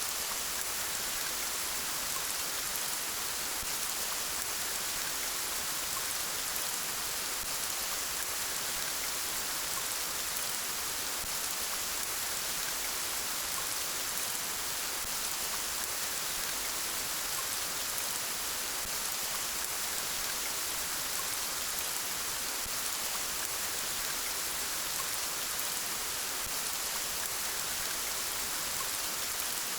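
Steady rain falling, an even hiss of many drops with no gusts or single drops standing out.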